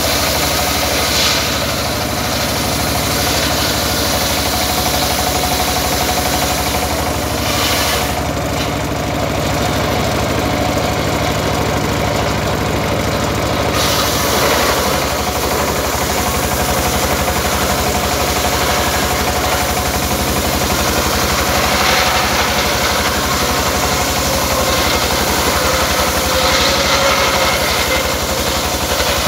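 Stationary single-cylinder diesel engine running steadily, driving a homemade circular saw as a timber plank is ripped lengthwise. The saw's cutting noise rises over the engine in the second half.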